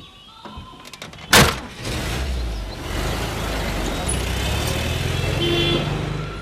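A car door slams shut, then a car engine runs and the car moves off, with a short horn note near the end.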